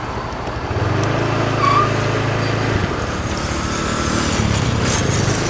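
Small motorcycle engine running steadily while riding, with road and wind noise.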